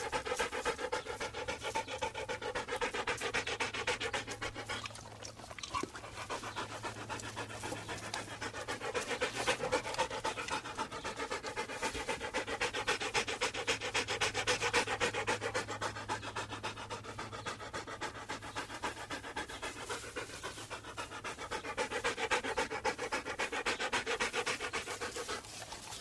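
A dog panting: quick, rhythmic in-and-out breaths, easing for a moment about five seconds in.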